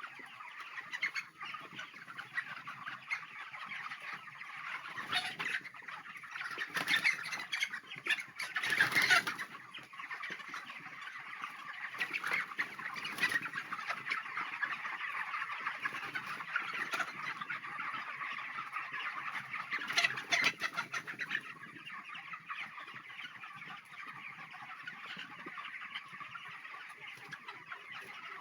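A large flock of broiler chickens in a poultry house, a continuous dense chorus of clucking and chirping, with a few louder moments.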